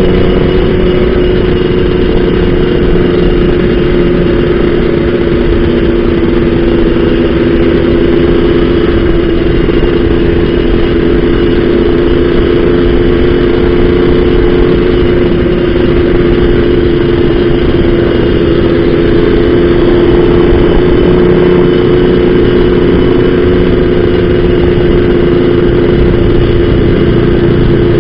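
Yamaha RXZ two-stroke single-cylinder motorcycle engine running under way at a steady cruising speed, heard from the rider's seat, its pitch holding nearly constant.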